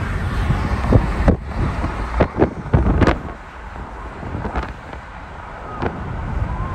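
Car driving along a highway, heard from inside the car: steady road rumble and wind noise. This cuts off abruptly about a second in, and a quieter stretch follows with scattered short clicks and knocks.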